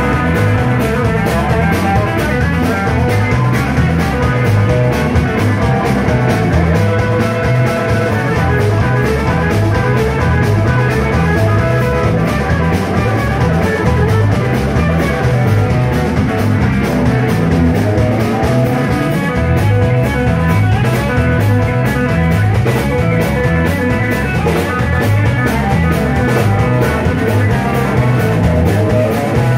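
Live rock band playing loud: electric guitars and bass over a drum kit with a steady beat.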